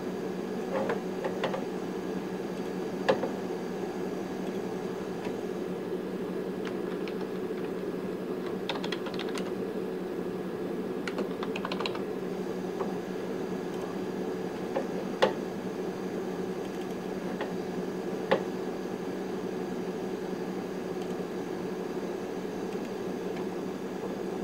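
Computer keyboard keys tapped in two short runs, with a few single sharp clicks spread through, over a steady machine hum.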